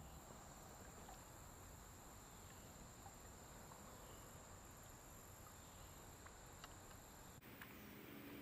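Near silence: faint outdoor background hiss with a thin, steady high-pitched whine that stops abruptly near the end, and a few very faint ticks.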